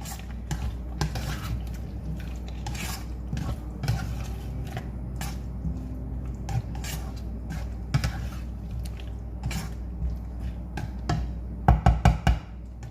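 A utensil stirring boiled carrots and potatoes in Alfredo sauce in a pan, with irregular scrapes and clinks against the pan over a steady low hum. Near the end comes a quick run of loud knocks.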